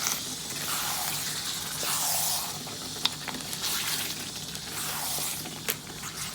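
Chicken curry sizzling and hissing in a hot non-stick wok, the gravy just thinned with water, the noise swelling and easing. Two short sharp clicks, one about halfway and one near the end.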